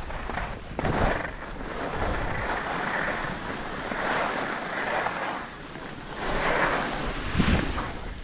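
Skis scraping and hissing over groomed snow on a downhill run, swelling and fading with each turn, with wind buffeting the microphone. A low thump comes near the end.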